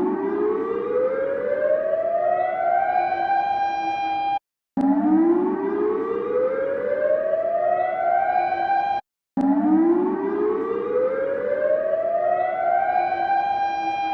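Siren-like alarm tone rising slowly in pitch over about four seconds, levelling off briefly, then cutting off sharply; after a short silence it starts rising again, repeating in a loop.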